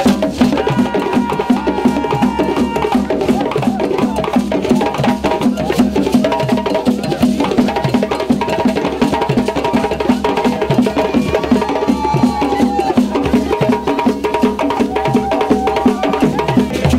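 A group of djembe drums played by hand in a fast, steady rhythm.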